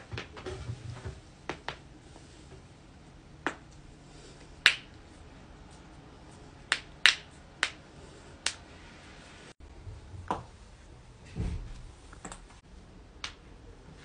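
Joints cracking: a series of sharp, separate pops at irregular intervals, about a dozen in all, the loudest a little under five seconds and about seven seconds in. A low thump comes about eleven and a half seconds in.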